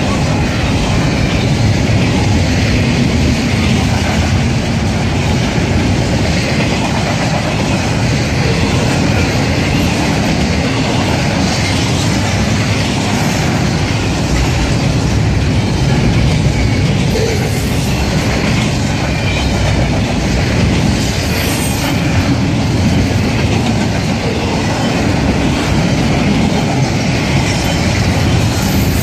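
Double-stack intermodal container train rolling past close by at speed: steady, loud rumble of the wagons with the clickety-clack of wheels over the rails, unbroken throughout.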